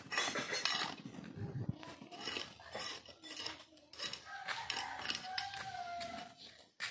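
Metal garden trowel and shovel scraping and striking stony soil: irregular gritty scrapes and clinks. A faint wavering tone sounds in the background for about two seconds in the second half.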